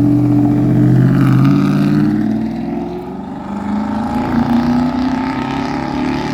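Straight-piped Chevrolet V8 pickup exhaust running hard under acceleration, loud at first, easing off about three seconds in, then building again.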